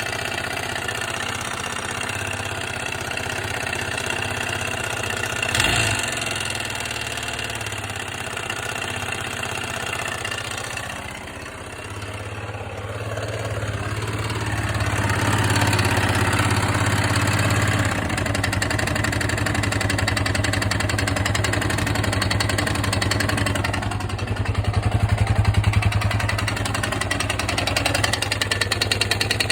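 Yamaha XT600/TT600 single-cylinder four-stroke engine running, with a brief sharp jump about six seconds in. The engine dips around eleven seconds, then runs louder and faster from about fifteen seconds, with another short swell in speed near twenty-five seconds.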